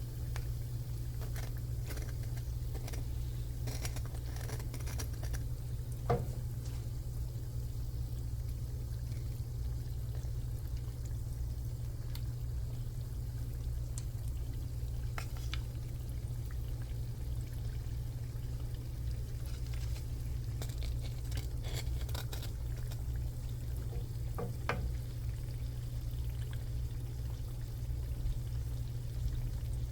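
Shrimp frying in a pan: faint crackling and scattered utensil clicks over a steady low hum, with a sharper knock about six seconds in.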